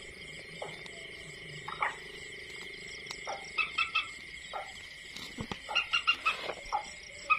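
Waterbird calls: runs of short, quick repeated notes about halfway through and again near the end, over a faint steady high whine.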